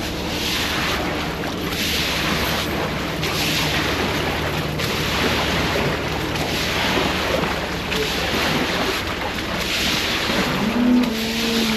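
Water rushing steadily across the flooded barn floor, rising and falling in irregular surges. A cow moos once near the end.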